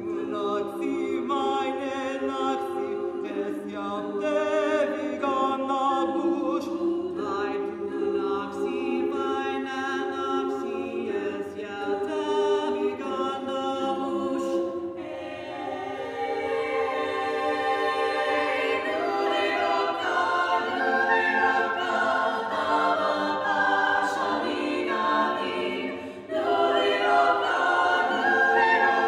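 Women's choir singing a cappella in several parts, holding sustained chords. Near the end there is a brief break, then a louder phrase.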